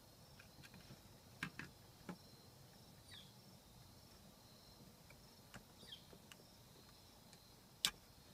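Near silence with a few faint clicks and taps from handling the plastic overhead light unit and its wiring, the sharpest click near the end. Faint short high chirps sound in the background.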